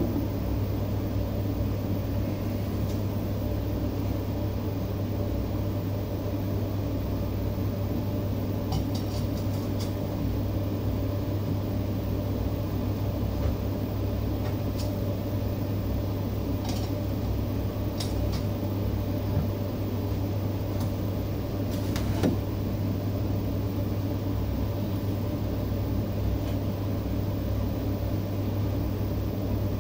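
A steady low hum, with a few light clicks and knocks scattered through it from a stainless-steel beer can chicken holder and its tray being handled.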